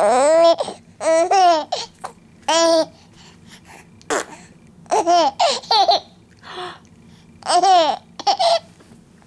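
Five-month-old baby laughing and babbling in about five short, high-pitched bursts, the pitch arching up and down in each.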